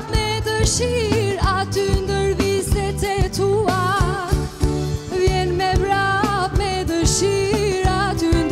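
A woman singing a ballad-like melody with strong vibrato, backed by a live band of drums and piano keyboard, with drum strikes keeping a steady beat under held low notes.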